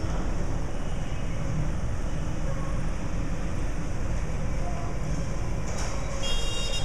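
Street traffic: a steady low rumble of passing motorcycles and motorcycle tricycles, with a brief high-pitched tone near the end.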